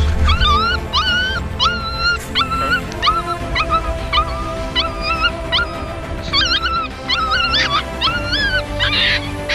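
A puppy whining and squealing in short, high, wavering cries, about two a second, over steady background music.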